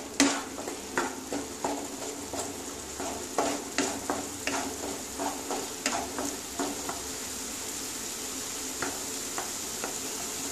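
Wooden spatula stirring and scraping thick kharkol leaf paste around a nonstick kadai, over a steady low sizzle as the paste fries and its water cooks off. The scraping strokes come two or three times a second for about the first seven seconds, then only now and then, leaving mostly the sizzle.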